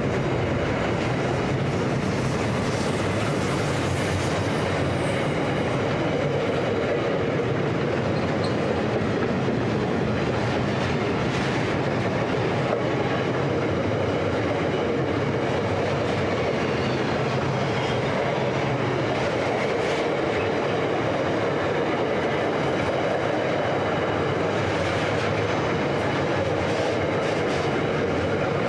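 Container freight wagons rolling past on the track: a steady rumble of steel wheels on rail, with occasional clicks over the rail joints.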